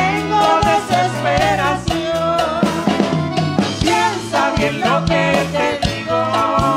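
Live tropical band playing a bolero: a voice singing a wavering melody over electric bass notes and a drum kit keeping a steady beat about twice a second.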